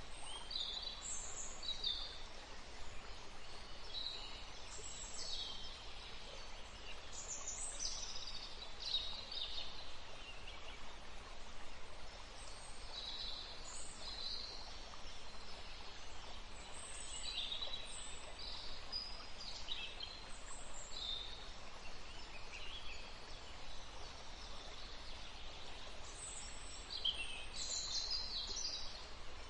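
Wild birds chirping and calling in short bursts, many overlapping, over the steady rush of a flowing river.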